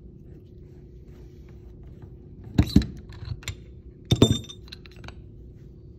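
Metal knocks and clinks as the steel vise nut is worked down and off the end of the lead screw. Two sharp knocks come about two and a half seconds in, then a few lighter clicks, then a quick cluster of knocks with a brief metallic ring about four seconds in.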